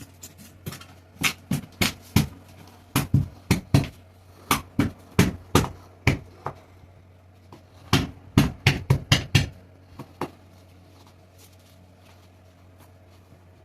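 A newly made fiberglass piece being pushed and knocked into its cutout during a test fit. It gives a run of sharp knocks and thumps in quick clusters that stop about ten seconds in.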